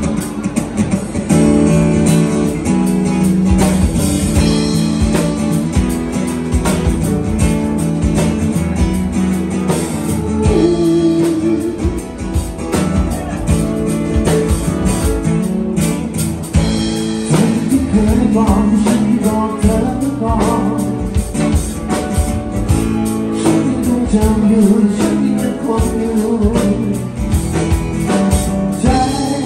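A live band playing a song: acoustic guitar and drum kit, with a man singing at the microphone.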